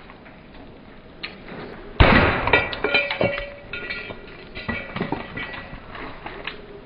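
A 10-pound sledgehammer strikes a cheap aftermarket Briggs and Stratton carburetor on a wooden stump once, about two seconds in, with a loud metallic bang. A string of light metallic clinks and rattles with brief ringing follows.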